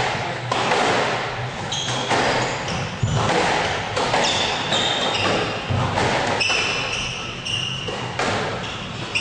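Squash rally: a series of sharp hits of the ball against rackets and the court walls, with several short, high squeaks of players' shoes on the wooden court floor.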